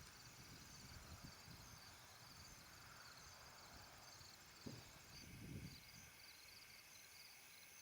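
Faint insects chirping in a steady, evenly repeating pulse over quiet rural field ambience, with a soft thump and a brief low rustle about five seconds in.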